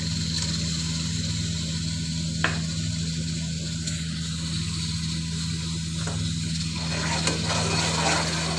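Onions frying in oil in a pot: a steady sizzle over a constant low hum, with one sharp click about two and a half seconds in and small clicks of a spoon stirring near the end.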